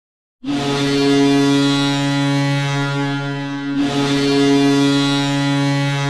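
HK Nitra's hockey goal horn sounding two long, steady blasts, signalling a goal. The first begins about half a second in, and the second follows almost without a break a little before four seconds in.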